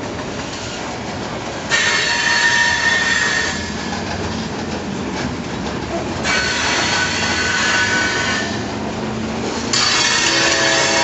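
Freight train of boxcars and tank cars rolling past, with a steady rumble of wheels on rail. High-pitched wheel squeal comes in three bouts: about two seconds in, around six seconds, and again near the end, when a lower, steadier tone joins it.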